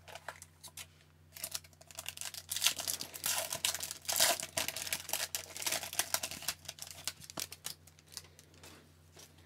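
A foil hockey card pack (2019-20 Upper Deck Series 2) torn open and crinkled by hand, a dense run of crackles and rips that dies away about eight seconds in.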